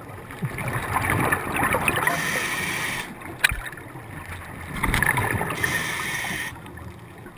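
Scuba diver breathing through a regulator underwater: two long rushes of exhaled bubbles gurgling, each about two seconds, with a quieter gap between them and a brief click between them.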